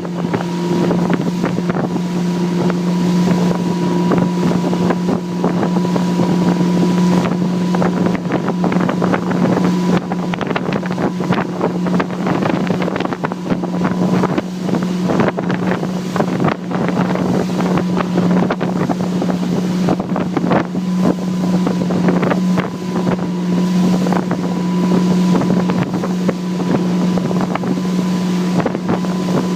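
Motorboat engine running at a steady pitch, with wind buffeting the microphone and water slapping.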